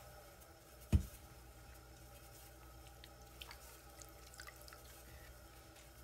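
Low steady hum of an electric pottery wheel spinning, with one dull thump about a second in and a few faint ticks and drips after it.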